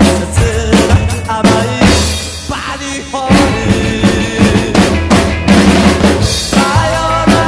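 Acoustic drum kit played live, bass drum, snare with rimshots and cymbals, along with the original rock recording it covers. The drumming eases off briefly a little before halfway, then drives back in, and the song's singing voice comes through near the end.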